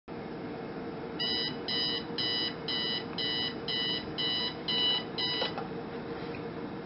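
Sharp digital alarm clock going off: nine short, high electronic beeps, about two a second, which stop with a click as the button on top is pressed. A steady low hiss and faint hum run underneath.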